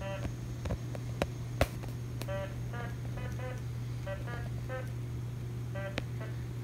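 Short electronic beeping tones, coming in quick pairs about once a second, over a steady low hum, with a few sharp clicks in the first two seconds.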